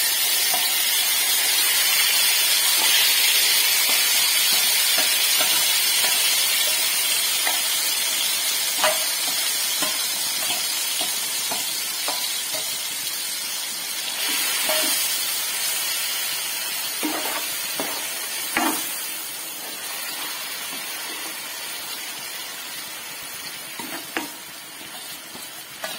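Marinated chicken sizzling as it hits hot oil in a metal kadai, loudest at first and slowly dying down as it fries. A ladle stirs and knocks against the pan now and then, more often in the second half.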